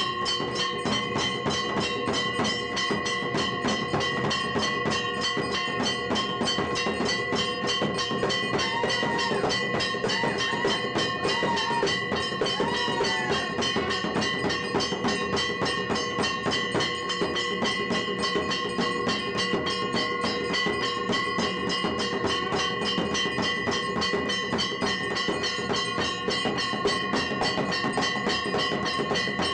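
Temple bells ringing without pause over a fast, even clatter of strikes. Faint voices are heard briefly around the middle.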